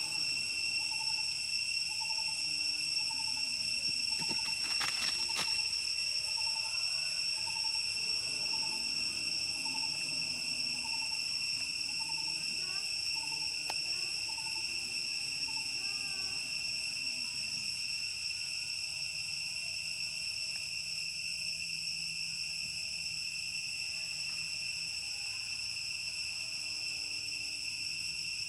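Steady, high-pitched drone of insects, unbroken throughout. During the first half a soft call repeats about twice a second, and there are a few clicks about five seconds in.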